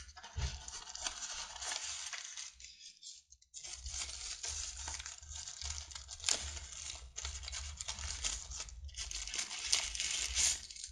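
Thin white plastic wrapping crinkling and rustling as it is handled and pulled open, with a few sharp clicks and crackles. It stops briefly about three seconds in, then resumes.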